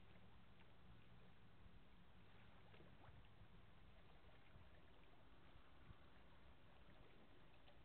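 Near silence: faint steady outdoor hiss with a low hum underneath.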